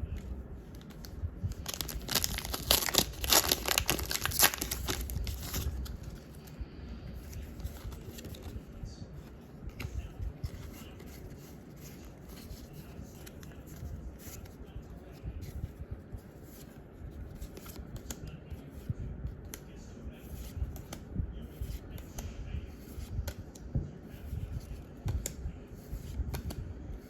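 Foil wrapper of a Pokémon trading card booster pack being torn open, a loud crinkly rip lasting about three seconds starting about two seconds in, followed by soft rustling and small clicks of the cards being handled and slid.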